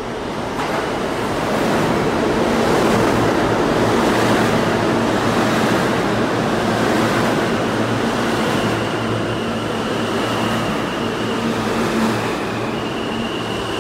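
New York City subway train of R160 cars running into an underground station, its steel wheels rumbling loudly on the rails. The rumble swells over the first couple of seconds, and a thin high whine from the cars joins about halfway through.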